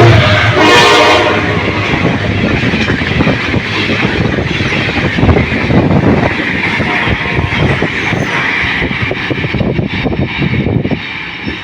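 General Electric diesel locomotive No. 2560 and its train passing at top speed. The locomotive's horn cuts off about a second in, then come the loud rush and clatter of the cars, wheels knocking over the rail joints, which falls away near the end.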